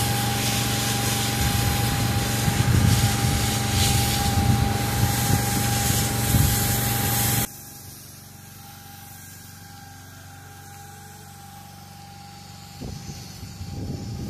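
Pressure washer lance spraying plain water, a loud steady hiss over the machine's hum. It cuts off sharply about halfway through, leaving a quieter steady hum, and the spray starts again near the end against a wooden planter.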